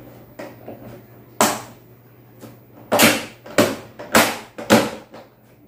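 The back panel of a Dell all-in-one PC being pressed on, its clips snapping into place with sharp clicks: one about a second in, then four in quick succession.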